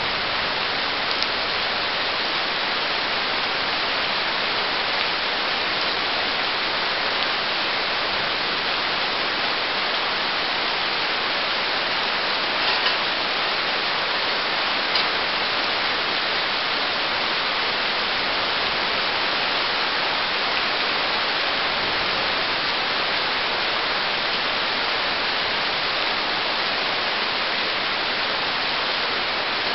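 Steady rain, an even hiss, with a few faint ticks, one about a second in and two around the middle.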